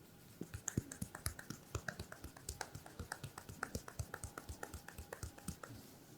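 Percussive tapping massage: a quick, even run of sharp taps, several a second, that starts about half a second in and stops near the end.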